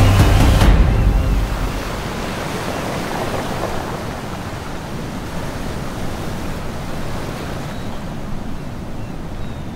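Music ends about a second in, leaving a steady rush of sea surf breaking against a rock and concrete-block breakwater.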